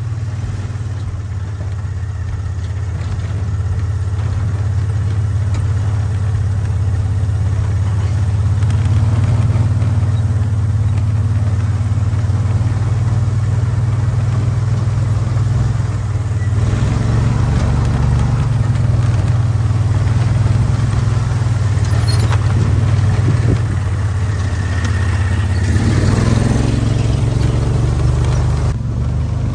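Side-by-side UTV engine running with a steady low drone while the machine drives over sand, rising a little in the first few seconds and rougher in the second half.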